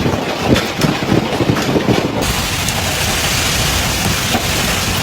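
Heavy hail falling, heard as a dense, steady rushing noise with many sharp clacks of individual stones striking hard surfaces; the clacks are thickest in the first two seconds.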